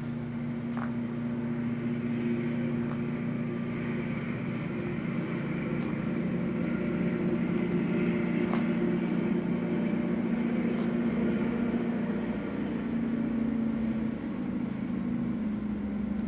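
Two KiwiRail DL-class diesel-electric locomotives approaching under power, a steady diesel engine hum that slowly grows louder and drops to a lower pitch about two seconds before the end.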